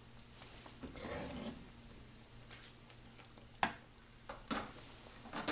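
A metal ladle scoops thick curry from a pot and pours it into a glass serving dish, with a soft scraping slop about a second in. Then come a few sharp clinks and knocks of the ladle and pot.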